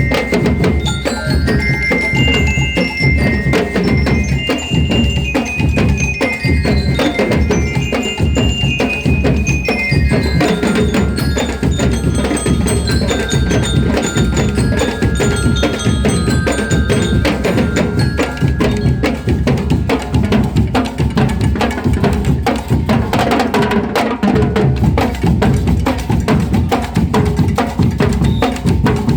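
Bell lyres (marching-band glockenspiels) playing a melody in high ringing notes that step up and down, over steady drumming.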